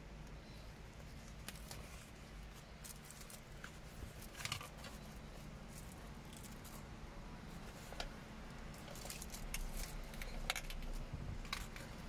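Scattered clicks and light rattles of a Chevrolet Trax's plastic shift knob and its chrome-trimmed shift boot being handled and worked apart, several clicks coming in quick clusters, over a low steady hum.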